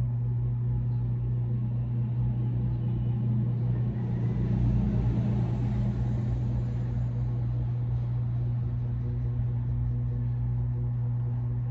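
A steady low mechanical hum, with a broad swell of noise that rises and fades about four to six seconds in.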